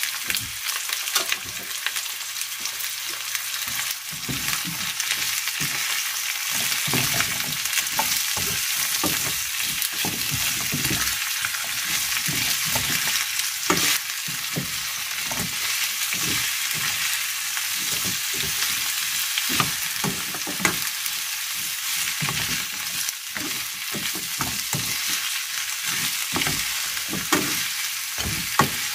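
Broccoli, carrot and onion sizzling in a hot wok, with a spatula scraping and knocking against the pan at irregular moments as the vegetables are stir-fried.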